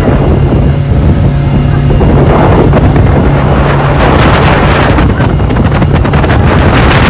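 Wind buffeting the phone's microphone on a motorboat running at speed, over the steady drone of its outboard engine and the rush of the wake.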